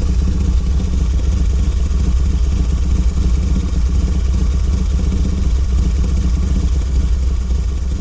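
A motor running steadily and loudly, a deep even hum with a fast flutter.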